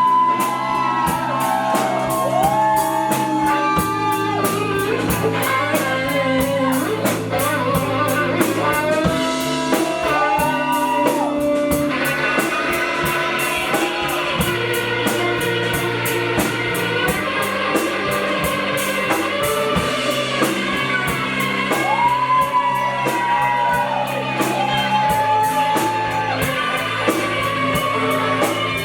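Live pop-rock band playing an instrumental break: a guitar carries a melody with bending notes over bass and a drum kit keeping a steady beat.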